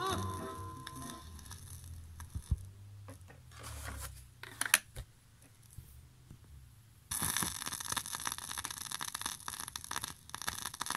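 The tail of a ska record fades out, followed by clicks and scrapes as a 7-inch vinyl single is swapped on the turntable. About seven seconds in, the stylus lands in the lead-in groove and vinyl surface crackle and hiss start suddenly, with no music yet.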